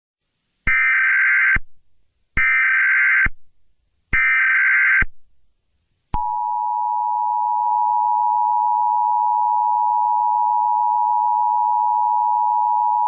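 Emergency Alert System SAME header: three short bursts of digital data tones, each about a second long. About six seconds in, the EAS two-tone attention signal starts, a steady loud two-note tone that opens an alert message.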